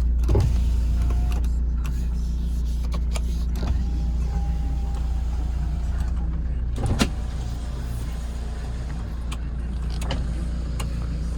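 Hyundai Terracan's engine idling steadily, heard from inside the cab, with a few sharp clicks over it, the loudest about seven seconds in.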